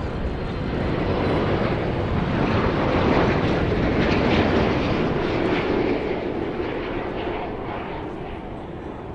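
Jet airliner passing low overhead. The engine noise swells to a peak about four seconds in, then fades as it moves away, its pitch dropping as it goes by.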